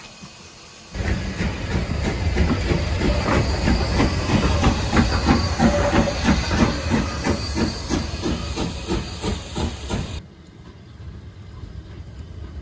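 Lambton Tank No. 29, an 0-6-2 steam tank locomotive, moving close by with loud hissing steam and a regular beat about three times a second. The sound cuts off suddenly near the end, leaving a quieter, more distant train sound.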